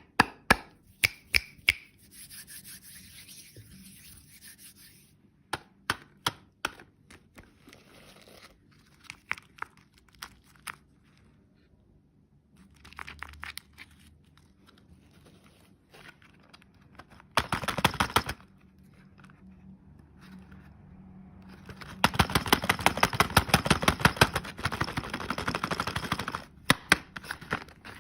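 Close-up ASMR handling sounds of candy and its packaging: scattered sharp clicks and taps, a stretch of rustling, and a few seconds of rapid crackling near the end.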